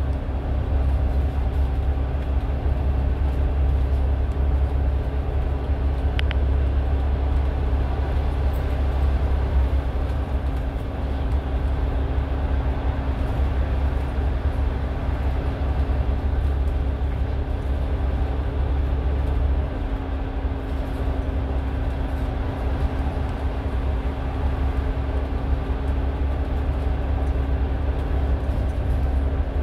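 Steady low rumble of a bus's engine and tyres at cruising speed, heard from inside the cabin, with a constant hum over it.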